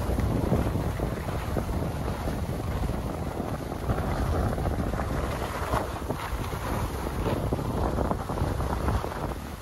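Wind rushing over the microphone of a skier moving downhill, with the hiss and scrape of skis sliding over snow.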